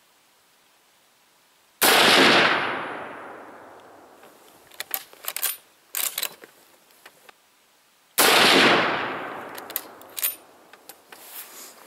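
Two 7.62x54R shots from a Mosin-Nagant 91/30 bolt-action rifle, about six seconds apart, each followed by a long echo that fades over about two seconds. Between the shots come a few sharp metallic clicks as the bolt is worked.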